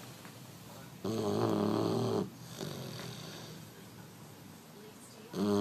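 Eleven-week-old Dogue de Bordeaux (French Mastiff) puppy snoring in its sleep. A loud snore of about a second comes about a second in, then quieter breathing, and the next snore starts near the end.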